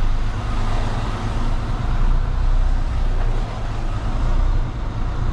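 Semi-truck's diesel engine running with a steady low rumble, heard from inside the cab as the tractor moves slowly.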